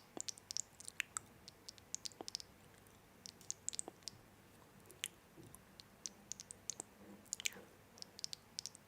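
Many quick, sharp clicks and light taps at irregular intervals, several a second in clusters, over a faint steady background.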